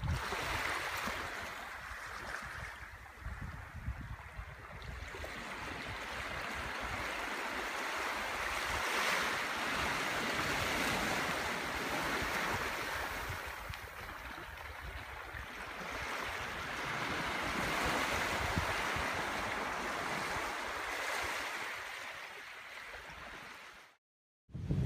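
Small waves washing up onto a sandy shore, the hiss of the surf swelling and fading every few seconds, with gusts of wind rumbling on the microphone. The sound cuts out abruptly near the end.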